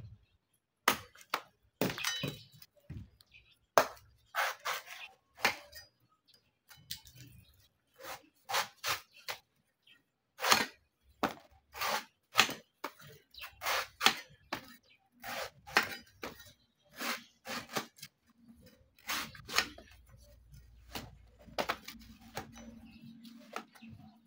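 Cleaver chopping and shaving the husk off a young green coconut on a wooden chopping block: a long run of sharp, irregular cuts, about one or two a second. A steady low hum comes in near the end.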